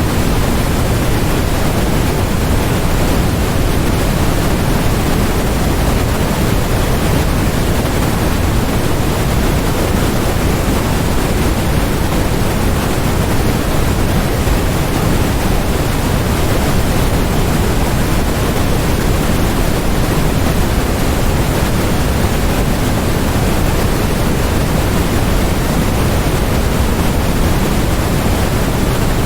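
Steady generated white noise: an even, unchanging hiss, fuller in the low end.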